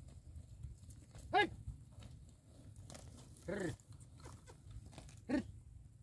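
A ploughman's short wordless calls driving a yoked pair of bullocks, three of them about two seconds apart, the middle one longer and falling in pitch.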